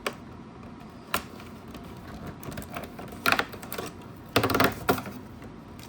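A cardboard advent-calendar compartment being opened and a booster pack pulled out: two sharp clicks, then two bursts of crackling cardboard and foil-wrapper rustle about three and four-and-a-half seconds in.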